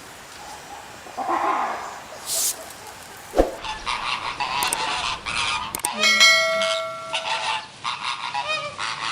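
Animal calls: a quieter stretch, a sharp knock about a third of the way in, then a busy run of calls, with one long pitched call held for over a second just past the middle.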